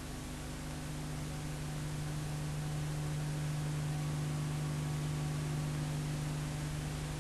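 Steady hiss with a low electrical hum underneath: the background noise of an old film soundtrack, with no music or speech.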